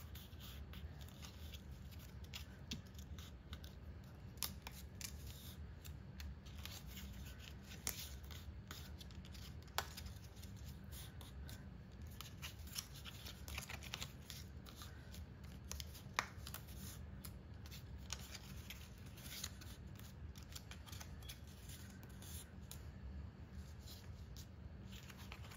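Green cardstock being folded along its score lines and pressed flat by hand: faint, scattered crackles and rustles of stiff paper, over a low steady hum.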